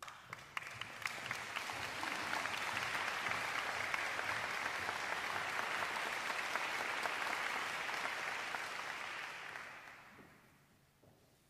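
Audience applauding: scattered first claps quickly build into steady applause, which dies away over the last two seconds or so.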